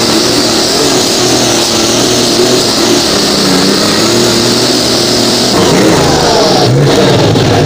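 Pulling tractor's engine at full throttle under load, heard close up through its twin upright stacks, the pitch wavering as it pulls. Near the end the throttle comes off: the pitch falls, the hiss cuts away suddenly and the engine settles to a lower, steadier run.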